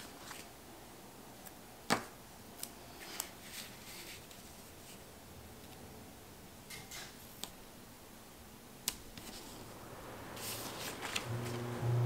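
Paper planner stickers being handled: scattered light ticks and rustles as stickers are lifted from the sheet with a small metal tool and pressed onto paper, the sharpest tick about two seconds in. A brief low hum comes in near the end.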